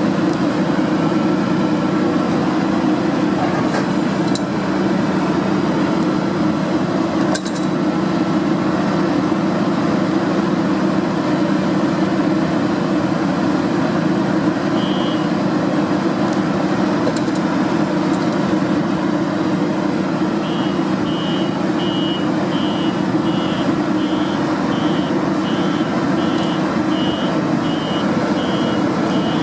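Deutz-Fahr 6060 combine harvester running steadily, its engine and threshing gear making a continuous heavy drone. From about two-thirds of the way in, a reversing alarm beeps regularly, about one and a half times a second.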